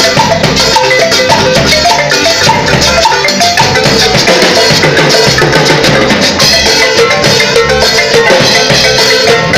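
Live band playing an instrumental passage: a marimba carries the melody in quick repeated notes over a drum kit and a steady low beat.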